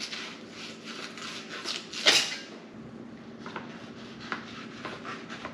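A knife skinning spiny dogfish fillets on a cutting board: quick rasping strokes of the blade against the shark's rough, sandpaper-like skin. One stroke about two seconds in is much louder, and after it the strokes come sparser and fainter.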